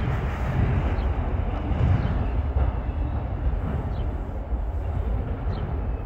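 Rumble of a freight train's autorack cars rolling away on the rails, the train receding.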